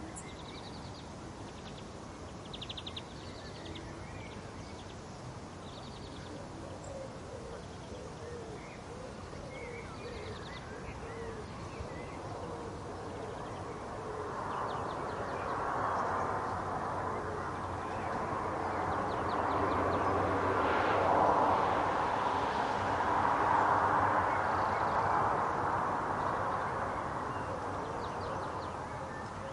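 Garden ambience: small birds chirp here and there over a low background hum. About halfway through, a broad rushing noise swells up, peaks, then fades away near the end, like distant passing traffic.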